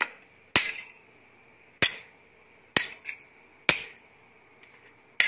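Repeated hard blows of a long-handled tool smashing a plastic toy: six sharp cracks, roughly one a second, the plastic breaking into pieces.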